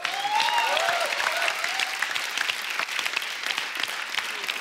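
Studio audience applauding, a dense patter of many hands clapping that is loudest at the start and eases off slightly toward the end.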